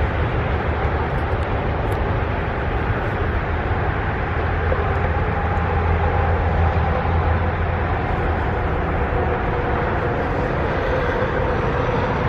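The last cars of an autorack freight train rolling on the rails, a steady rumble of steel wheels on track.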